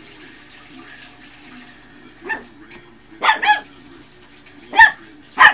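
Shih tzu puppy yapping: about five short, high-pitched barks, two of them close together midway and the loudest two near the end.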